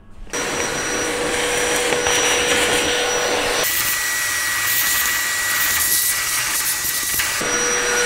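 Vacuum cleaner switched on about a third of a second in, sucking coffee grounds out of a coffee grinder's opened burr chamber through a hose nozzle. Its steady whine jumps higher a little before halfway and drops back shortly before the end.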